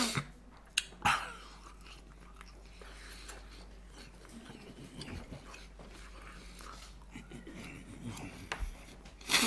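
A man chewing fried chicken and chips: quiet mouth sounds and small crunching clicks. A few short, louder noises come about a second in and near the end.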